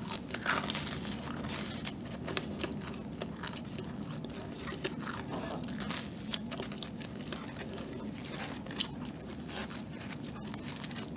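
Biting and chewing a soft bread bun, with many small sharp crunches from the seeds and sugar on its crust.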